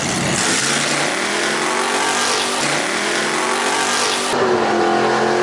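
Drag racing car engine accelerating hard down the strip. Its pitch climbs for about four seconds, then drops suddenly.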